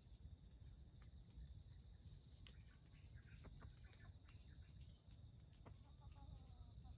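Near silence of forest ambience, with a steady high-pitched whine, a few small chirps and leaf clicks. Near the end a junglefowl rooster starts to crow faintly.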